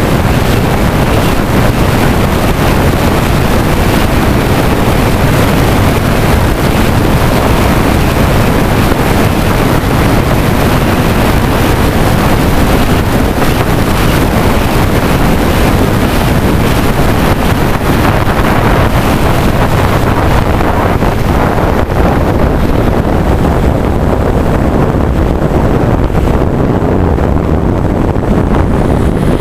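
Loud, steady rush of airflow buffeting the onboard camera microphone of an FPV Wing 155 flying wing in a fast descent. The high hiss eases off near the end.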